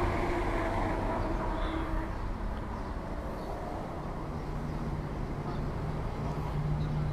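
Street traffic: engine noise from vehicles and motorbikes on the road, with a steady low engine hum that comes in about four seconds in.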